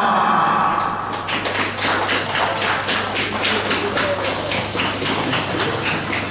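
A few people clapping their hands in a quick, fairly even run of claps, starting about a second in.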